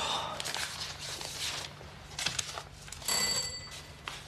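A doorbell rings once: a short, bright bell tone about three seconds in, after some rustling.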